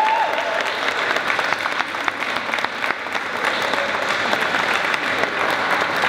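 A crowd of guests applauding, many hands clapping at once in a steady, dense stream.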